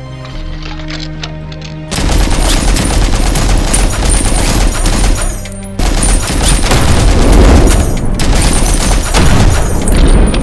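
Minigun-style machine-gun fire, a dense continuous rattle of rapid shots that starts abruptly about two seconds in and breaks off briefly near the middle. Music plays underneath.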